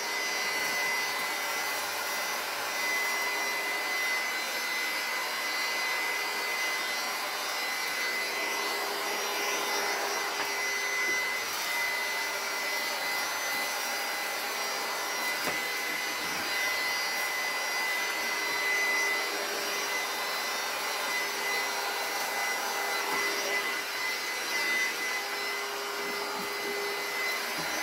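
Handheld electric heat gun running continuously, its fan blowing hot air with a steady high whine as it shrinks plastic shrink-wrap film around a gift basket.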